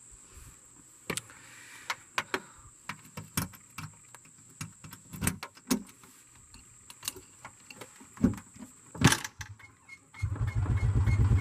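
A series of scattered clicks and knocks, then about ten seconds in the golf cart's motor starts and runs steadily with a low, rapid pulsing.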